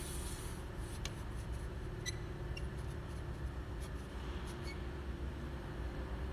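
A few light clicks and taps as a figure-skating scribe's extendable pole and clamps are handled and adjusted, over a steady low machinery hum.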